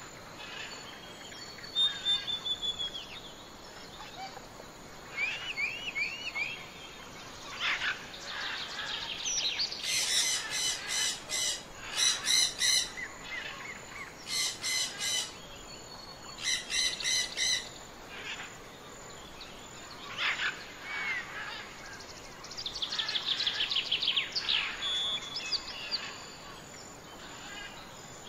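Songbirds singing and calling over a steady background hiss: assorted short whistles, chirps and trills, with a loud run of rapid pulsed notes repeated in four bursts around the middle.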